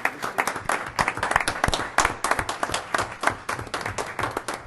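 A small group of people applauding, with many overlapping handclaps.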